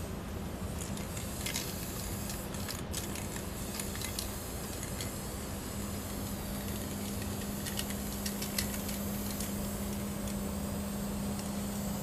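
Aerosol spray paint cans hissing in short bursts against a steel freight hopper car, over a steady low engine hum that drops out for a few seconds early on.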